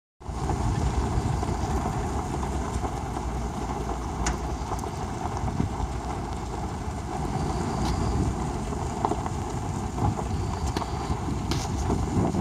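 Vehicle rolling slowly along a gravel road: a steady low rumble of tyres and engine, with wind noise on the microphone and a couple of sharp clicks.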